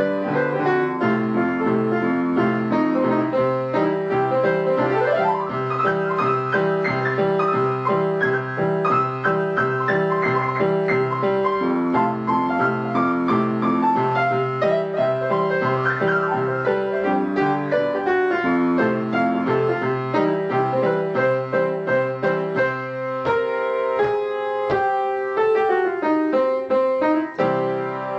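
Piano music played at an even tempo, with a regular repeating pattern of low bass notes under the tune.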